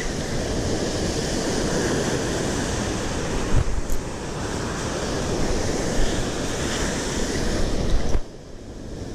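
Surf breaking and washing up the beach, with wind buffeting the microphone and a few brief thumps; the noise drops off sharply about eight seconds in.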